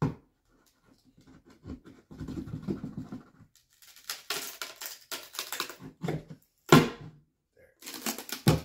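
Small crowbar prying the lid off a wooden crate: bursts of scraping and scratching of metal on wood, with a sharp crack about two-thirds of the way through, the loudest moment, as the lid works loose.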